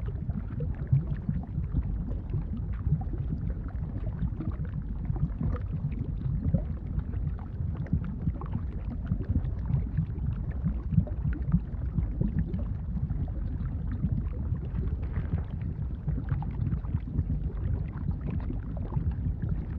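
Bubbling lava sound effect: a steady, deep bubbling with many small irregular pops.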